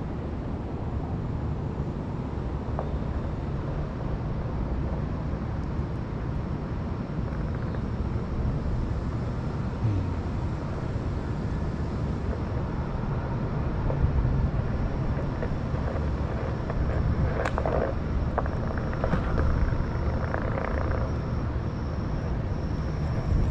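Steady low rumble of street ambience and wind on the microphone, with a few clicks and a short stretch of clatter about three-quarters of the way through.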